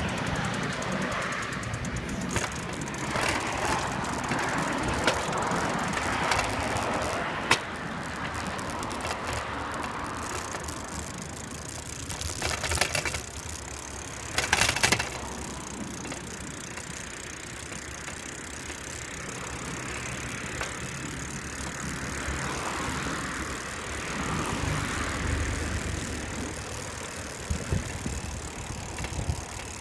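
Bicycle rolling along a paved path, heard through a handlebar-mounted camera, with tyre and wind noise and its frame and basket rattling. It clatters over bumps now and then, most loudly around the middle.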